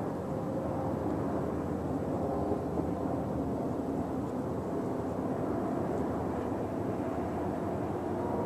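Distant EMD diesel locomotive engine droning steadily as it hauls a long freight train.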